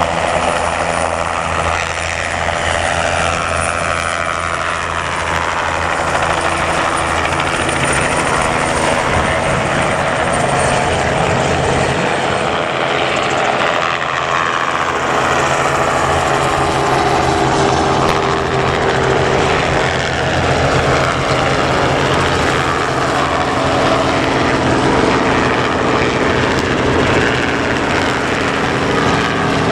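Several light helicopters flying low in formation: a Bell 505 turbine helicopter and Robinson R22 and R44 piston helicopters. Their rotor and engine noise is steady and loud, with pitches sliding up and down as the machines pass and turn.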